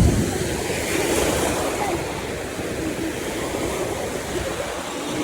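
Sea waves washing onto a beach, with wind rumbling on the microphone, strongest at the start.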